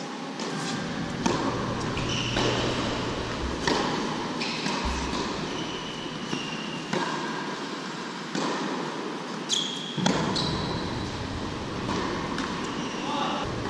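Tennis ball being struck by racquets and bouncing on an indoor hard court during a rally: sharp knocks every second or two. Short high squeaks from shoes on the court come in between, over a steady background hiss.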